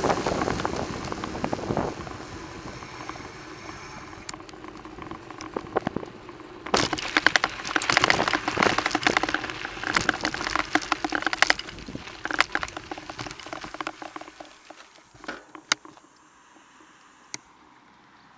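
Bicycle rolling over a gravel track, its tyres crunching on loose stones while the handlebar-mounted camera rattles. Wind rush on the microphone fades over the first couple of seconds, and the crackling stops a few seconds before the end.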